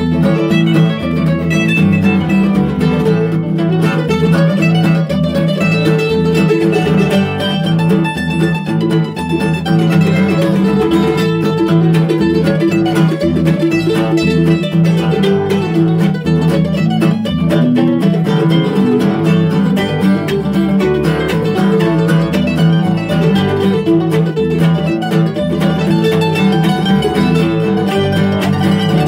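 Acoustic string band playing an instrumental tune: mandolins and an acoustic guitar picking over a bass line.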